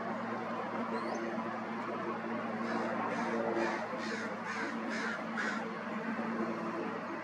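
Steady drone of the Cessna 185 floatplane's piston engine and propeller going past. From about three seconds in, a crow caws about seven times in a quick even series, with a faint high chirp of a small bird just before.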